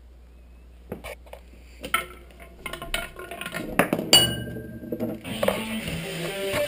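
Scattered clicks and clinks of a marble and bouncy ball running through a homemade Rube Goldberg chain-reaction machine, with a ringing ping about four seconds in. About five seconds in, music starts playing from a speaker, set off by the machine pressing an MP3 player's play button.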